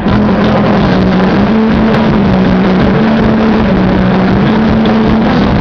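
Punk band playing live with heavily distorted electric guitar, loud enough that the recording is overloaded: a held droning note runs under a dense wash of noise and scattered drum hits.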